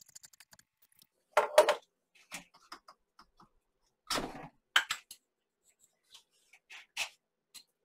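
Small metal tools and parts clinking and tapping against a 3D printer's metal toolhead while it is worked on by hand. There are scattered sharp clinks, loudest about a second and a half in and again around four seconds in.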